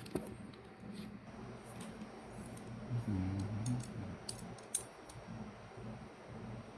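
Small metal clicks and clinks from a hand tubing bender being handled and adjusted on brake-line tubing, with a brief low hum about three seconds in.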